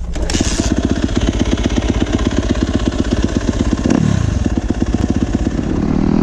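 Yamaha YZ250F dirt bike's four-stroke single-cylinder engine running at low revs with a steady rapid thumping, with a brief drop in pitch about four seconds in. A short hiss near the start.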